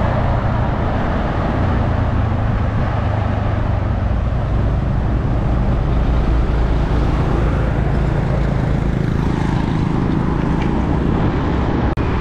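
Heavy diesel tanker semi-trailer trucks driving past close by: a loud, steady low engine rumble with tyre and road noise, briefly cut off near the end.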